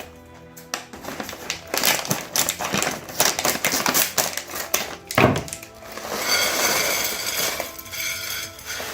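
Plastic snack bag of tapioca finger chips crinkling and crackling as it is torn open and handled, in a dense run of irregular rustles.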